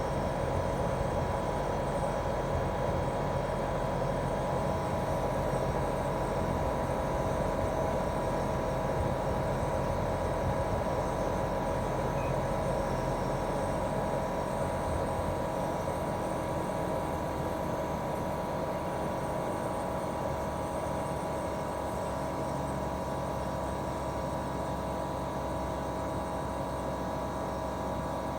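Daikin R28RMV mini-split outdoor unit running in heating mode: its twin-cylinder swing compressor and fan give a steady hum with a couple of held tones. The deepest rumble eases off about two-thirds of the way through.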